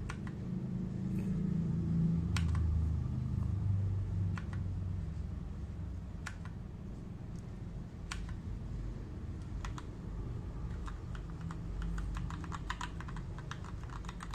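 Keystrokes on a Keychron K2 mechanical keyboard with Gateron Red switches and ABS keycaps: single key presses a second or two apart, then a quick run of typing near the end, over a low background rumble.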